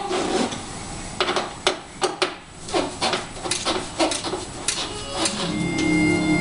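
Irregular clicks and knocks of metal parts handled in hand work on a Ford E-150 van's rear door latch mechanism. About five and a half seconds in, background music with held tones comes in.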